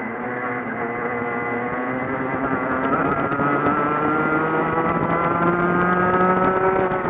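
Racing kart engine heard from the driver's seat at race speed, its pitch rising steadily through the second half as the kart accelerates.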